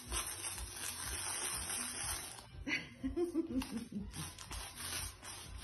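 Rubber pet-hair broom pushed across a laminate floor, a steady scraping swish. A short voice-like whine cuts in about two and a half seconds in and lasts about a second.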